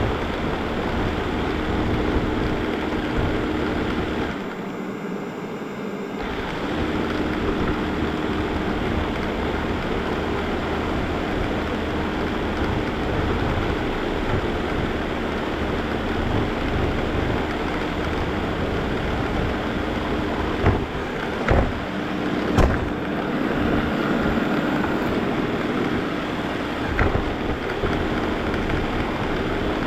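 Shark robot vacuum running, heard from a camera riding on it: a steady motor and brush whir with a hum, the low part dropping away for a couple of seconds near the start. A few sharp knocks come about two-thirds of the way through, and one more near the end.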